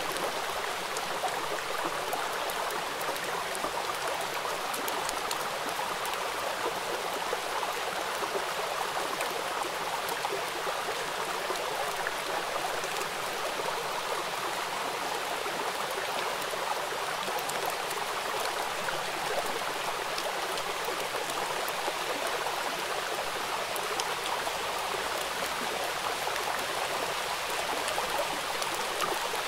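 Steady rain falling on open water, a dense even hiss of countless drops with fine ticks of single drops on top.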